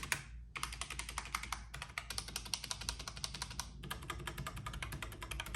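Logitech K845 mechanical keyboard with brown switches and PBT double-shot keycaps being typed on: quick runs of keystroke clicks, with short pauses about half a second in and near four seconds in.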